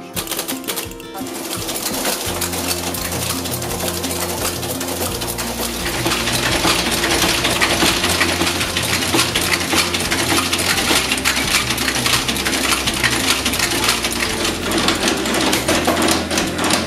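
Monotype typecasting machine running with a rapid metallic clatter, over background music with a bass line. The clatter grows louder about six seconds in.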